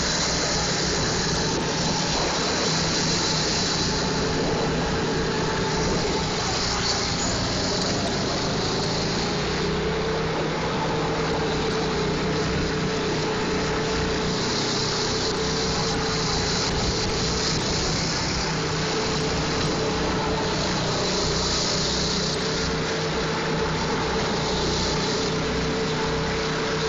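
Go-kart engine running continuously, its drone wavering slightly in pitch, over a steady rushing noise.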